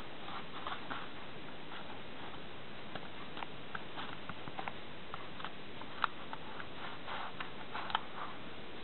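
Fingers pressing and rubbing a rubber patch onto a bicycle inner tube, making scattered small clicks and squeaks over a steady hiss, with two sharper clicks in the second half.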